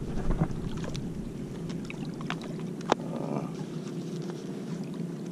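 Steady low motor hum with scattered light clicks and one sharp click about three seconds in.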